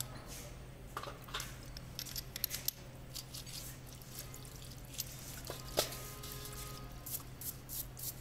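Small aluminium hydraulic gear-pump parts being washed by hand in a metal basin of water: splashing and dripping, with light clicks and clinks of the parts. Near the end a brush starts scrubbing a part, in quick repeated strokes.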